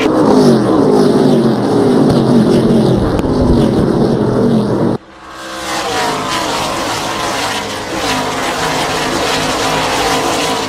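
NASCAR Gen 6 V8 race-car engines at speed, the pitch repeatedly rising and falling. About halfway through, an edit cuts to another clip of several cars' engines running together, their pitches climbing.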